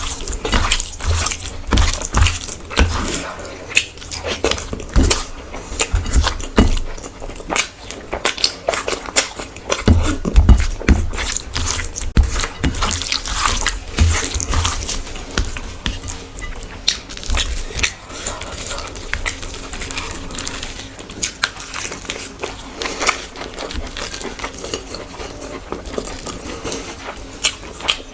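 Close-miked eating sounds: wet chewing of rice and curry, with frequent irregular clicks and squelches.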